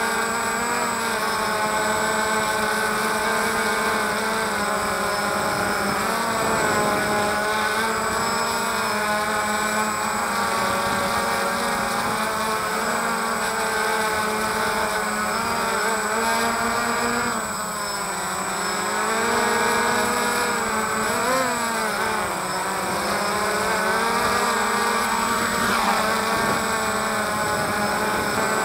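DJI Phantom quadcopter's motors and propellers buzzing steadily, heard up close from the camera on the drone itself. The pitch dips and swings up and down a few times about two-thirds of the way through as the motors change speed.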